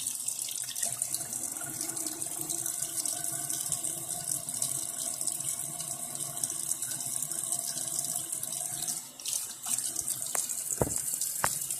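Water running from a tap into a sink in a steady hiss, briefly dropping off about nine seconds in, with a few short clicks near the end.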